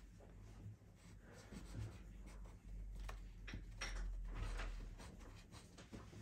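Pencil scratching on paper in a series of short drawing strokes, over a low steady hum.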